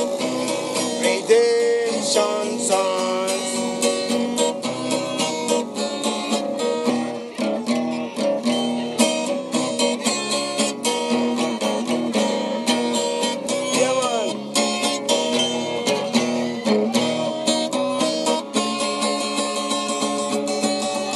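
Acoustic guitar strummed and picked in a steady rhythm, with a man's voice singing along at times.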